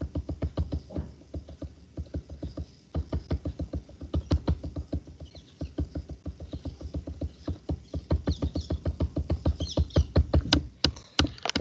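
Rapid, irregular taps and clicks, several a second, of writing out an equation by hand, growing louder near the end.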